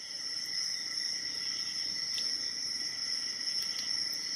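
Faint ticks of a hook pick and tension wrench working the pin stack of an Abus 72/40 padlock as picking starts again. Behind them runs a steady high-pitched whine at several pitches.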